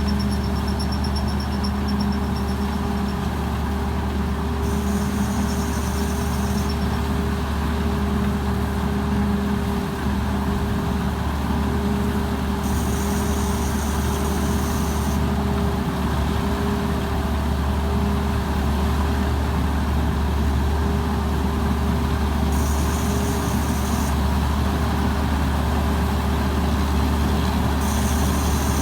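Tamco Pro S9000 combine harvester's Hino J08C diesel engine running steadily at a constant speed. A high pulsing sound comes and goes several times over it.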